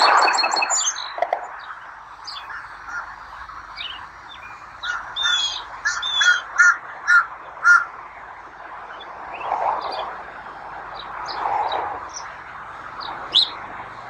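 Wild birds calling: scattered high, sharp chirps, thickening into a quick run of repeated loud notes in the middle, with a few lower, rougher calls later on.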